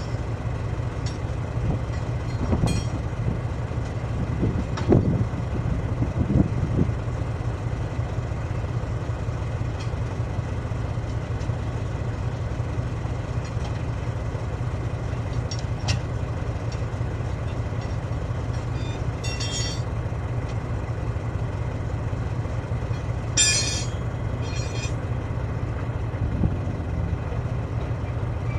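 Heavy diesel engine running steadily, with a few metal clanks and several short high-pitched bursts of a tool or air.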